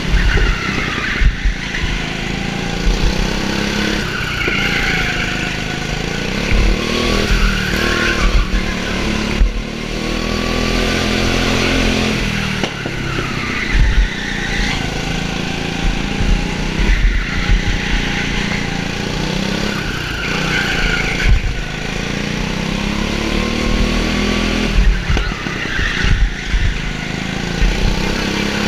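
Go-kart engine heard from a helmet-mounted camera, revving up again and again and dropping off sharply every few seconds as the kart laps the track, with wind buffeting the microphone.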